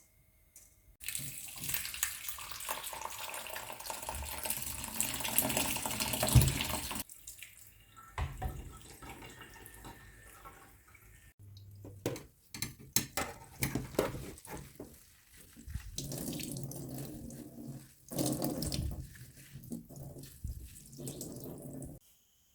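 Tap water running into a sink in several stretches that start and stop abruptly, the longest lasting about six seconds, with sharp clicks and knocks in between.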